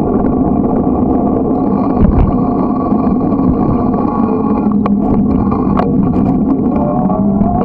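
Bicycle riding over asphalt heard from a camera mounted on the bike: a steady, loud rumble of tyres, road and rattling frame, with a couple of sharp clicks about five and six seconds in.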